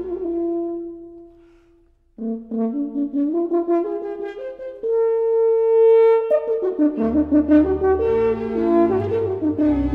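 Background music of held, changing notes. A phrase fades out, there is a short pause about two seconds in, and the music starts again with a long held note; a low bass part comes in about seven seconds in.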